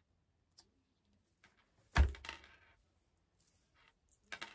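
A single loud thump about two seconds in, followed by a short fading rattle, and a softer knock near the end.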